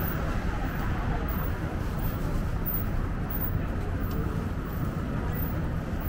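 Steady city street noise: a low traffic rumble with a faint murmur of crowd voices.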